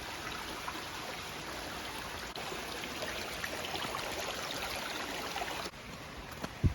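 Flowing stream water rushing steadily, with fine splashing; the sound shifts abruptly near the end, and a brief low thump comes just before the end.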